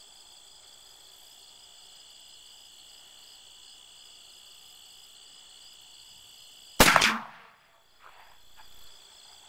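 A single rifle shot from an 1862 Peabody falling-block rifle in .43 Spanish, about seven seconds in: one sharp, loud crack with a short fading tail. Crickets chirp steadily under it.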